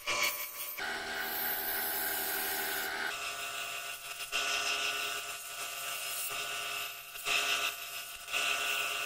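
Wood lathe running with a steady whine while a hand-held turning gouge cuts a spinning pale-wood spindle, a continuous scraping hiss of shavings peeling off. The cutting noise grows and eases several times as the tool is moved along the workpiece.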